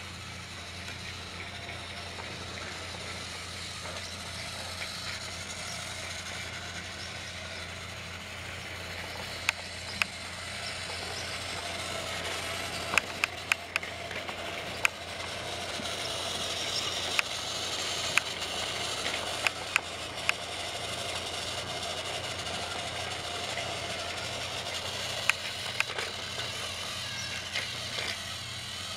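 Battery-powered Thomas TrackMaster toy train motors whirring steadily as the engines run along plastic track, with scattered sharp clicks and clacks through the middle and toward the end.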